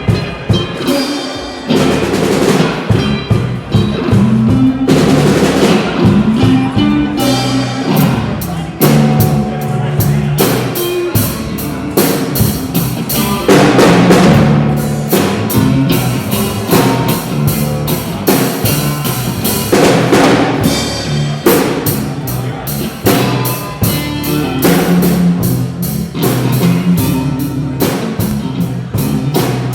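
Music played with a drum kit, its bass drum and snare keeping a steady driving beat under a moving pitched instrumental line.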